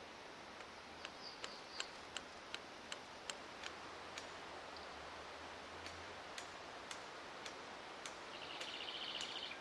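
Faint sharp ticks, about three a second for a few seconds, then thinning out to occasional single ticks, over a quiet bush background. A bird chirps briefly near the end.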